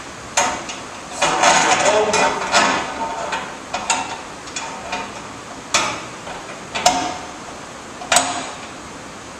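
Metal clinks and taps as a draw bolt is fitted through a metal truss and the TV mount body: several sharp clinks spread out, some with a brief ring.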